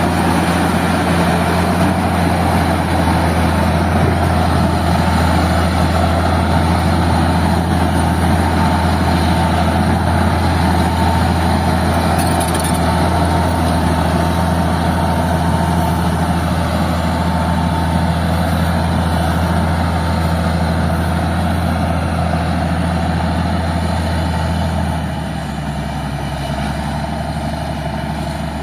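Old Caterpillar D6 crawler dozer's diesel engine running steadily with a deep rumble, easing to a lower, quieter note near the end.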